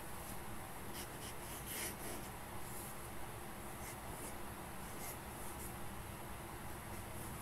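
Fountain pen nib scratching across lined paper as flourished capital letters are written, a series of faint, irregular strokes.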